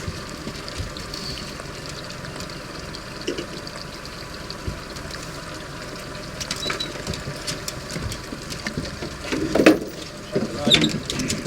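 A boat's motor running steadily under a haze of water noise, with scattered light knocks and clicks. There are a few louder short knocks near the end.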